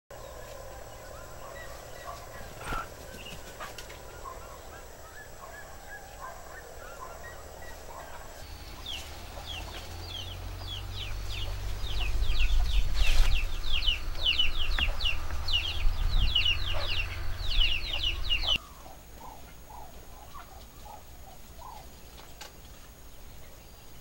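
Birds calling. Faint calls at first, then a rapid chatter of short, high, falling notes that grows denser and louder over a low rumble and breaks off suddenly. A short series of lower notes follows.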